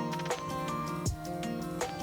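Background music: a steady beat with kick drum and cymbal ticks under sustained melodic notes.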